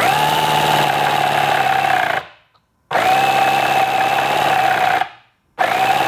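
Electric starter spinning a see-through model inline-four engine in three bursts of about two seconds each, a steady whine, with the engine not catching. It has a ton of blow-by past the pistons: no compression, so it won't fire.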